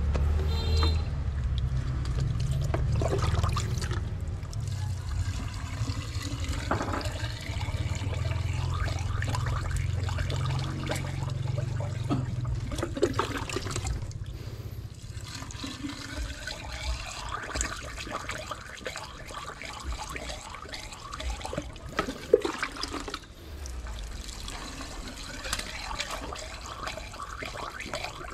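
Water rushing and splashing, with a low hum under it for roughly the first half that then drops away, leaving a lighter splashing trickle.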